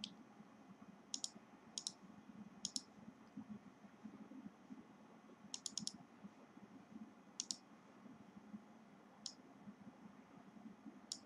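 Faint computer mouse clicks, coming every second or two, some in quick pairs and one short run of three or four, over a faint steady hiss.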